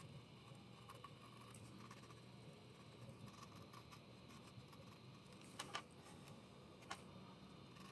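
Near silence: faint room tone with a few soft, brief clicks, two close together about five and a half seconds in and one about a second later.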